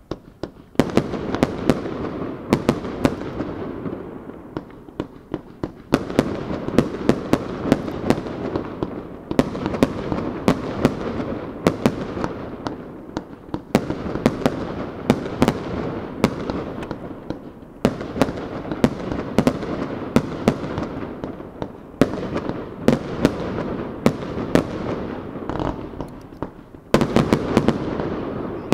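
Aerial fireworks display: shells launching and bursting in rapid volleys of sharp bangs, each bang trailing off in a reverberant rumble, with a new volley starting every few seconds.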